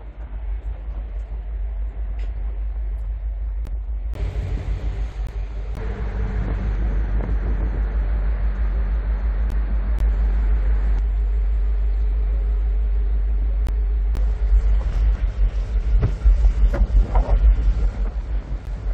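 Deck ambience of a car ferry under way: the ship's engines give a steady low rumble and hum, and wind buffets the microphone, gusting harder near the end.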